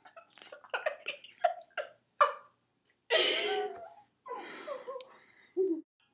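People stifling laughter: a run of short breathy giggles and snorts, with one longer breathy laugh about three seconds in.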